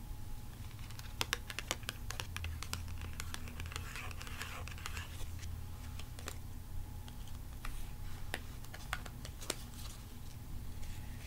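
Irregular sharp clicks and taps of long fingernails against trading cards as they are handled and flipped through, with a scratchy rustle of cards sliding against each other about four seconds in, over a steady low hum of recording noise.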